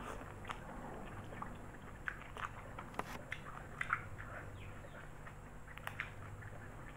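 Close-miked eating sounds of spaghetti and raw kenikir leaves: irregular wet chewing clicks and smacks, over a low steady hum.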